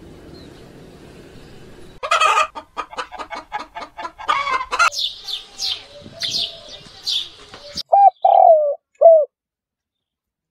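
Bird calls: a fast run of harsh calls, about five a second, then a series of high, quickly falling sparrow chirps, then a spotted dove cooing three low notes near the end.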